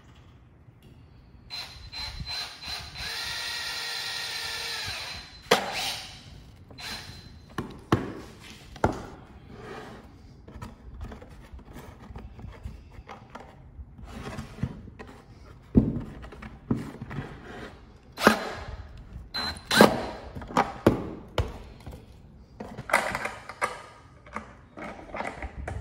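A power drill runs steadily for about three seconds, twisting strands of twine into cord. It is followed by scattered knocks and clunks of wooden and metal parts being handled on a bench.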